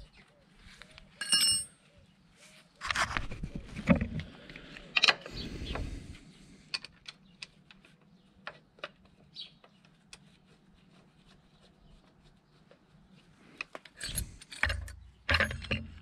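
Metal hand tools clinking and knocking against a motorcycle's aluminium footrest bracket as it is bolted to the frame. There is a ringing metal clink about a second in, a cluster of handling knocks from about three to six seconds, scattered light clicks, and more knocks near the end.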